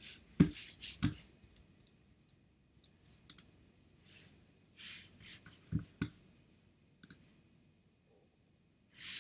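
Scattered computer mouse clicks, single and in quick pairs, during photo editing, with a soft breath near the end.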